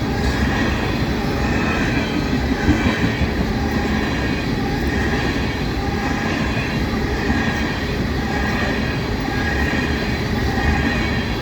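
Empty ethanol tank cars of a freight train rolling past at about 35 mph: a steady, unbroken rumble of steel wheels on the rails.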